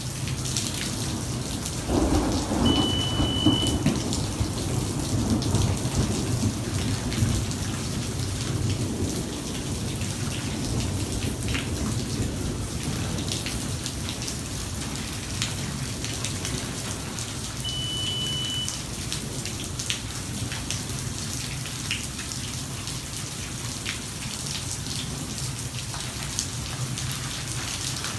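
Steady heavy rain, with a clap of thunder breaking about two seconds in and rumbling away over several seconds. Two short, high beeps sound, one near the start and one about two-thirds of the way through.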